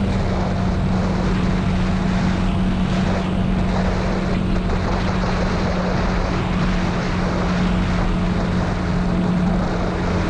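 TGB Blade 1000 ATV's V-twin engine running at a steady cruising speed, a constant drone that neither rises nor falls, with wind rushing over the open vehicle.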